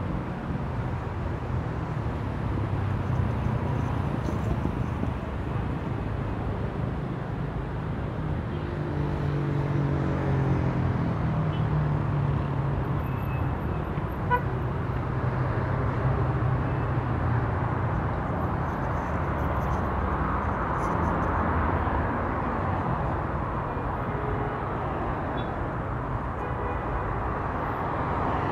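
City street traffic: cars driving past in a steady wash of noise. One vehicle's engine note stands out about a third of the way in, and there is a single sharp click about halfway through.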